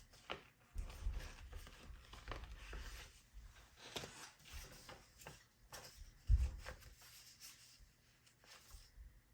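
Rustling and clicking of paper and small objects being handled, with a run of dull knocks about a second in and a single louder thump a little past six seconds.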